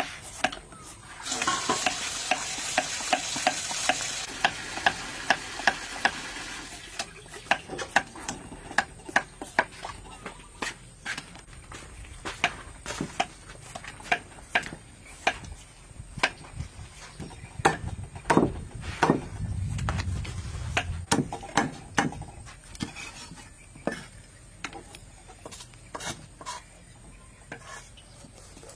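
Knife and cleaver work on raw food: a run of sharp clicks and scrapes throughout, with a stretch of steady hiss in the first few seconds and a low rumble a little past the middle.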